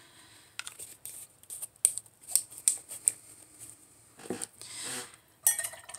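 Small plastic paint pots and bottles being handled on a tabletop: a run of light clicks and taps, then a duller knock about four seconds in and a brief rustle.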